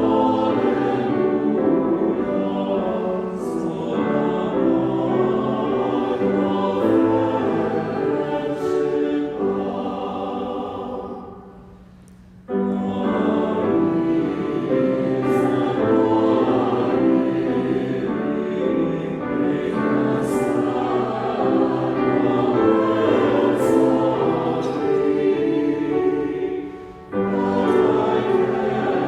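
Choir singing a hymn with accompaniment, pausing briefly between phrases twice.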